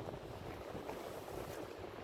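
Wind on the microphone over the steady wash of the sea.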